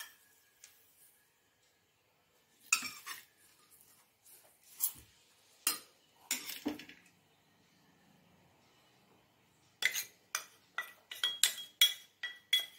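Steel spoon clinking and scraping against a stainless steel mixing bowl and cup while stirring dry flour, with ringing metallic clinks: a few scattered ones, then a quick run of about ten near the end.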